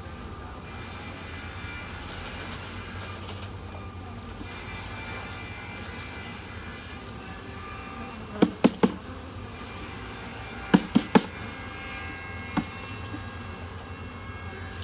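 A wooden package of honey bees being knocked to shake the bees out into a hive: three quick sharp knocks past the middle, three more a couple of seconds later and a single knock near the end, over a steady low hum.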